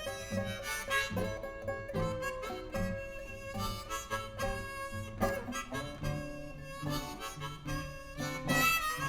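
Blues harmonica playing an instrumental break over a guitar and bass backing, part of a recorded blues song with no singing.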